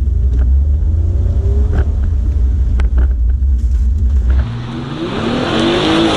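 Car accelerating hard, its engine revving up under a heavy low rumble heard from inside the cabin. About four seconds in, the sound switches to outside: the engine note climbs as the car speeds closer, then drops as it passes.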